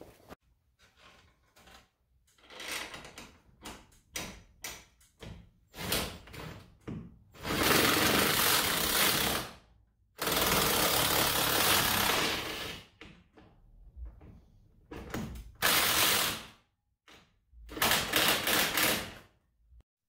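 Cordless impact driver hammering a screw through a garage door's torsion-spring end bracket into the wood framing. It runs in bursts: two long ones of about two and a half seconds in the middle, then two shorter ones near the end, with small clicks and knocks of handling between.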